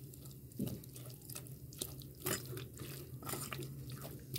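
Milk-soaked semolina frying in hot oil in a steel pot as it is stirred with a silicone spatula: faint, irregular crackles and sizzling pops over a low steady hum. The semolina is being roasted until its raw taste is cooked out.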